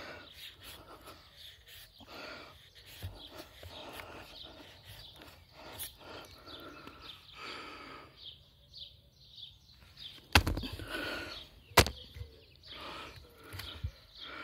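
Dry wood being split with an Albainox fixed-blade knife: crackling and scraping of the wood against the blade, then two sharp knocks about a second and a half apart near the end.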